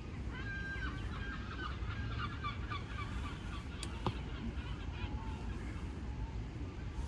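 Geese honking, a run of calls mostly in the first few seconds, over a steady low rumble. A sharp click comes about four seconds in.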